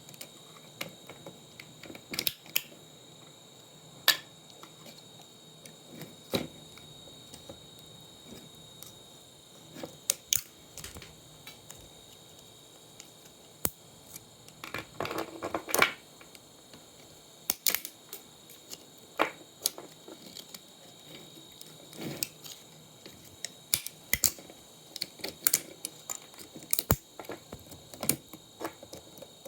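Irregular clicks and light taps of tools and small plastic and metal parts being handled while an old monitor is taken apart, with a brief cluster of knocks about halfway through.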